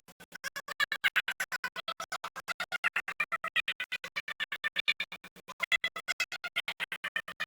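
Music whose sound cuts in and out rapidly, about ten times a second, in an even stutter. This is a fault in the recording's audio.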